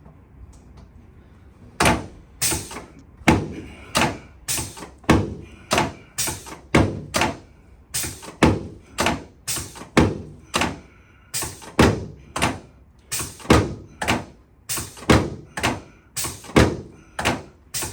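A steady series of about two dozen sharp thunks, roughly two a second, starting about two seconds in: impacts from chiropractic adjusting work on a patient.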